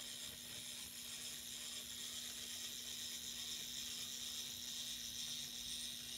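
Tiny motor and gear train of a Tomytec N-scale model bus running, a steady high-pitched whir as the bus drives along its roadbed.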